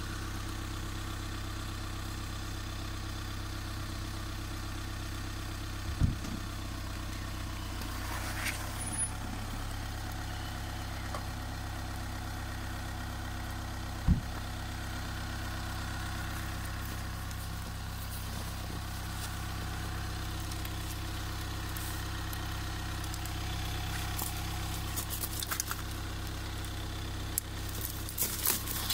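A car engine idling steadily, with two sharp knocks about six and fourteen seconds in. Near the end come small clicks and rustling of clothing as hands reach in behind the chained wheel.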